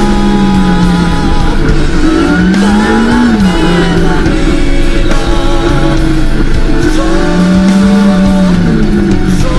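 Background music: a song with a voice singing long, arching phrases over steady held chords.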